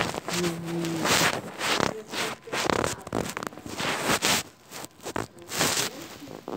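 Rustling and scraping handling noise from a phone being moved about and rubbed against clothing, in uneven bursts.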